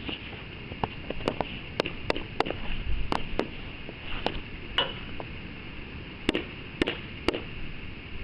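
A dozen or so sharp knocks and clacks at irregular intervals, some close together in pairs, over a steady hiss.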